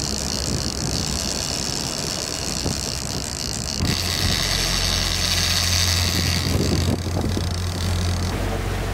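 Sport-fishing boat's engines running steadily under way, with the rush of water from the wake and wind on the microphone; the engine hum is louder and deeper from about four seconds in.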